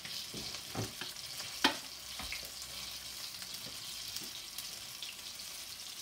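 Saltfish fritters frying in shallow oil over medium-high heat, with a steady sizzle and small crackles. One sharp clack about a second and a half in, as metal tongs are set down on the counter.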